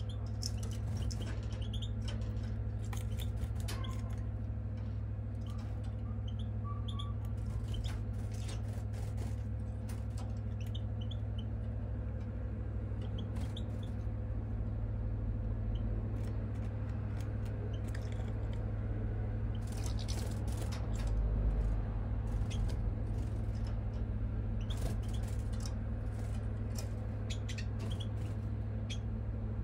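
A steady low hum throughout, with scattered short chirps and clicks of a small bird over it.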